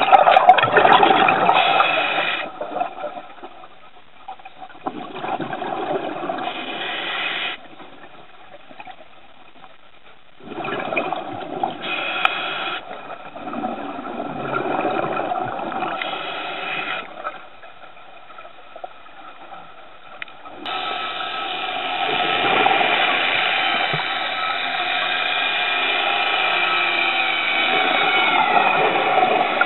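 Scuba diver breathing through a regulator underwater: exhaled bubbles gurgle and rumble in bursts a few seconds apart, with quieter pauses between breaths. In the last third a steady drone with several held tones takes over and continues.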